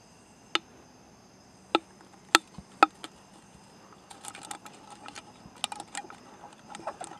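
Fishing line being wound by hand back onto an aluminium drink can used as a reel: a few sharp clicks in the first three seconds, then from about four seconds a quick, dense run of small clicks and rattles as the can is spun. Insects trill steadily underneath.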